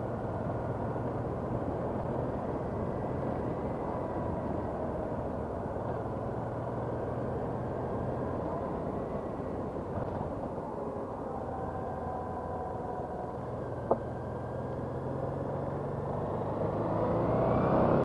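Honda NT700V Deauville's V-twin engine running under way, heard through steady wind and road noise on a helmet-mounted camera. A single sharp click about fourteen seconds in, and near the end the engine note rises and gets louder.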